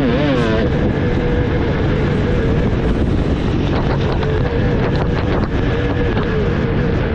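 300 cc two-stroke motocross bike engine under way on the track. The revs swing up and down briefly at the start, then are held fairly steady down a straight. Wind noise is on the microphone.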